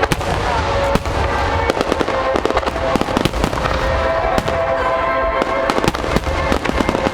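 Fireworks bursting and crackling in rapid succession over a continuous low rumble of booms, with music of long held notes playing along.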